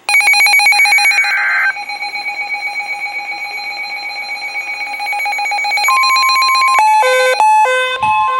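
Emergency Alert System alert sounds: it opens with the tail of a buzzy data burst over a loud electronic alert tone. The tone pulses rapidly for several seconds. Near the end it gives way to a series of electronic beeps jumping between a few different pitches.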